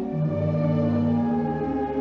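Orchestral ballet music playing slow, long held notes, with the low notes shifting in pitch about a second and a half in.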